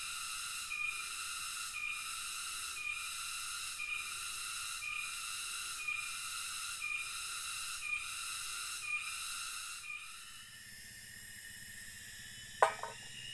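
Cicadas droning in a high-pitched buzz that pulses about once a second. About ten seconds in the pulsing stops and a smoother insect drone goes on, with a single sharp click near the end.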